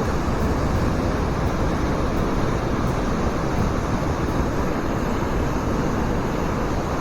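Waterfall on a mountain stream, the water running high, with a steady, even rush of falling and flowing water.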